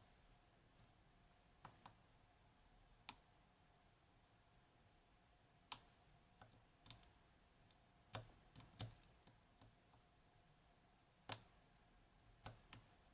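Faint, irregular clicks of a lock pick and tension tool working the top row of pins inside a Kaba Gemini S dimple lock cylinder.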